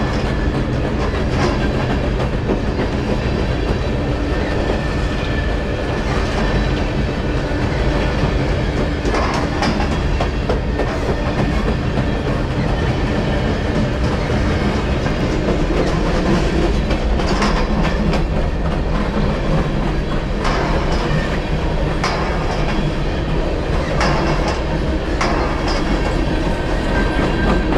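BNSF freight train's cars rolling past: a steady rumble with irregular clicks and clanks from the wheels on the rails.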